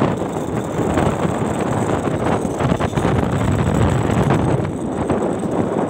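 Wind rushing over the phone's microphone while riding along a road, with a steady low rumble of travel underneath.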